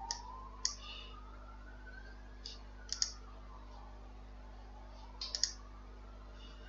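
Faint, light clicks from working a computer's pointer: single clicks near the start, a close pair about three seconds in, and a quick run of three about five seconds in. Underneath, a faint tone slowly rises and falls.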